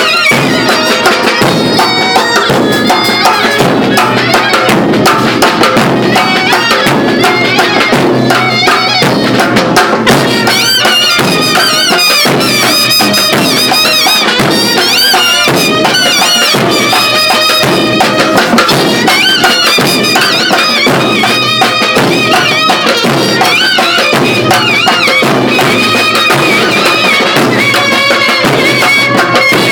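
Loud folk music: a large bass drum beaten steadily with a stick under a wavering high melody, with no pause.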